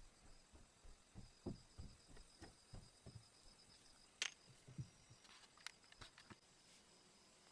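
Faint handling sounds as a small USB card reader is picked out of its opened plastic packet: a run of soft low knocks, a sharp click about four seconds in, then a few light clicks.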